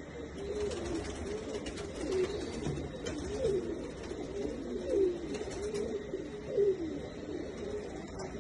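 Several fantail pigeons cooing, their calls repeating and overlapping with one another.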